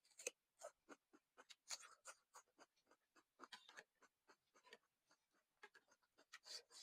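Close-up eating sounds of chicken thukpa noodle soup being chewed and slurped: a quick, irregular run of short mouth smacks and clicks, several a second.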